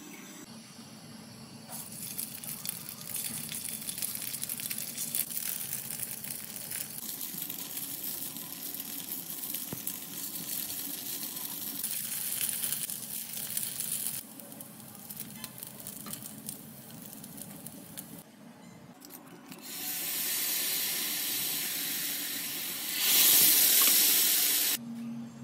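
Tteok (rice cake) skewers frying and sizzling in hot oil in a frying pan. The sizzle dies down for a few seconds, then a gochujang-based sauce bubbles and sizzles in the hot pan, loudest for a second or two near the end before it cuts off suddenly.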